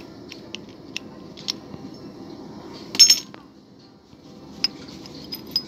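Small metal jig-head mould being handled and opened: scattered light metallic clicks and clinks, with a louder cluster of ringing clinks about three seconds in as the freshly cast flexi jig heads are freed from it.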